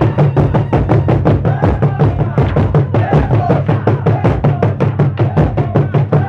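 Burundian traditional drumming: a fast, steady drum beat of about five or six strokes a second, with a voice calling over it.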